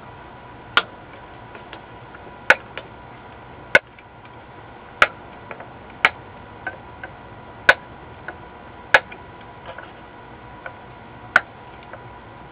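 Diagonal cutters snipping off the protruding metal leads of newly soldered capacitors on a circuit board. About eight sharp clicks come one every second or so, unevenly spaced, with a few fainter ticks between.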